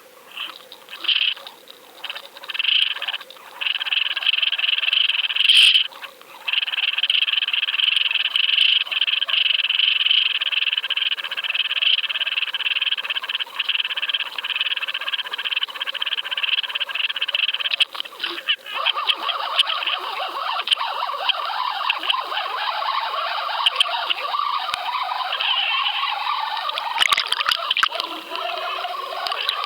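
Fishing reel being cranked steadily, retrieving a deep-diving crankbait at a medium speed; the reel's gears make a continuous rough whir. It comes in a few short spurts at first, then runs without a break, and changes texture about two-thirds of the way through.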